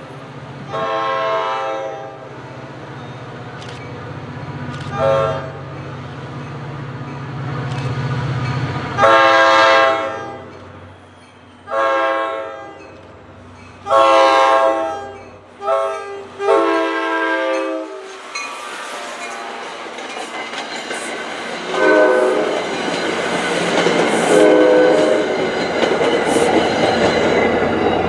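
NJ Transit GP40PH-2B diesel locomotive's air horn sounding repeated long and short blasts as the train approaches, over the low hum of its engine. The train then rolls past with a steady rushing rumble of wheels on rail, and a few more, fainter horn blasts sound near the end.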